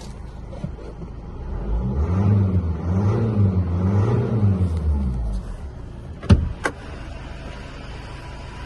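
Iveco Daily van's diesel engine revved four times in quick succession, its pitch rising and falling with each rev, then settling back to idle. Two sharp clicks follow about a second apart.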